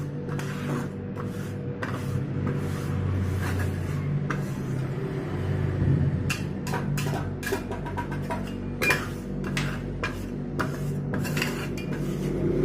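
Metal spatulas scraping and tapping on the cold steel plate of a rolled ice cream machine, with a steady low hum underneath. The strokes come quicker and sharper in the second half.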